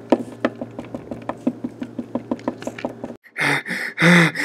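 Rubber eraser scrubbed rapidly back and forth against a wooden desk, about six short strokes a second. Near the end it stops and a person lets out two loud vocal bursts.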